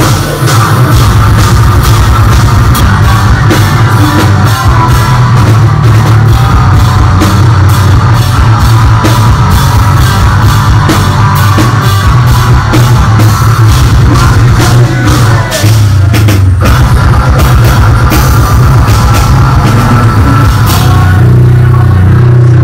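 Metalcore band playing live at high volume: drums hitting in a steady, even beat under heavy guitars.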